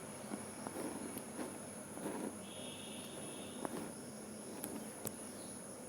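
Faint room tone: a steady low hiss with a thin high whine, a few faint clicks, and a brief faint tone in the middle.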